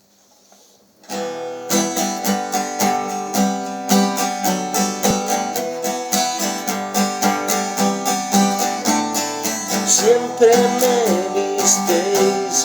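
Song intro on strummed acoustic guitar, starting about a second in after near silence, with a wavering melody line joining near the end.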